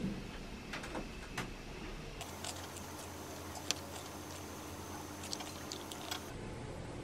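A metal spoon clicking against a plate and dishes as a meal is eaten, a few light clicks and one sharper one a little after the middle, over steady room noise with a low hum.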